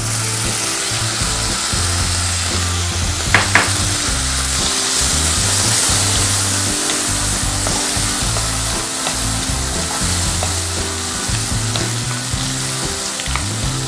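Oil sizzling in a non-stick kadai as moong dal is stirred into frying onions and chillies, the wooden spoon scraping through the pan, with a sharp knock of the spoon about three and a half seconds in.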